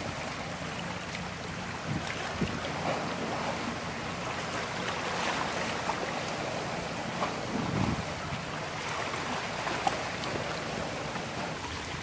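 Wind noise on the microphone over the steady wash of river water and passing boats, with low gusts about two and a half seconds in and again about eight seconds in.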